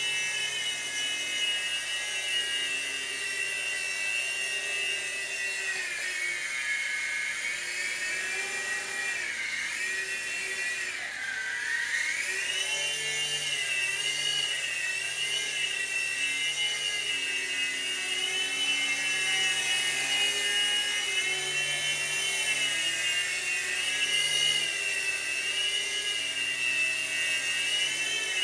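Revell Rotobot three-channel micro RC helicopter in flight: its electric motors and rotors whine steadily at a high pitch. The pitch dips twice, about six and eleven seconds in, and rises back again.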